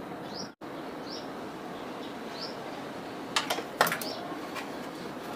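A small bird chirping over and over in short high calls, about once every two-thirds of a second, over steady background noise. Around three and a half to four seconds in, a few sharp clatters of parts being handled are the loudest sounds.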